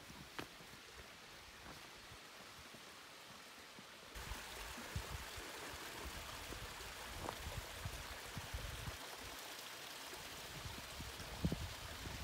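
Small stream of water trickling and splashing over smooth rock into a pool, a steady rush that starts suddenly about four seconds in, with a few low thumps. Before it, only a faint hiss with a few clicks.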